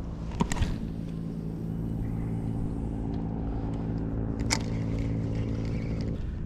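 A steady, even engine-like drone begins just after the start and cuts off about six seconds in. A swish and click come just after the start as a spinning rod is cast, and another sharp click comes about four and a half seconds in.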